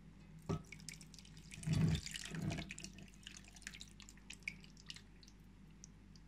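Kefir poured from a glass jar over fried potato wedges in a pot: a knock about half a second in, a thick gush of liquid about two seconds in, then scattered drips and small splats.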